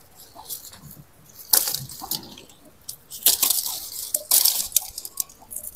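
Lemon tree's leafy branches rustling and crackling as fruit is picked from them by hand, in three louder bursts about a second and a half, three seconds and four and a half seconds in, with light crackles between.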